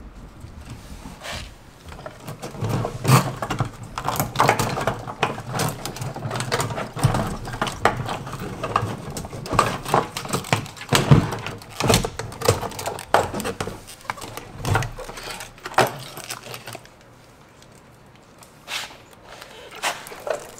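Irregular plastic clicks, knocks and rustling as gloved hands disconnect fuel lines and work the old low-pressure fuel pump module out of a plastic fuel tank. The handling goes quiet for the last few seconds.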